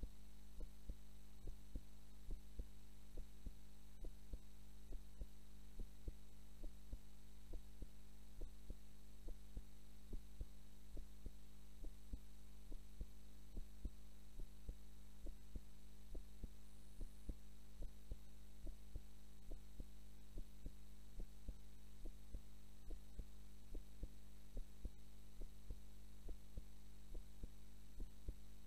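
A human heartbeat picked up close to the chest, beating slowly and evenly at about one beat a second: the resting rhythm of a woman asleep. A steady low hum runs beneath it.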